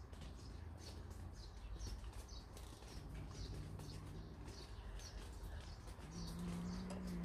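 Sparrow chirping over and over, short high chirps about twice a second, faint. A low steady hum comes in about six seconds in.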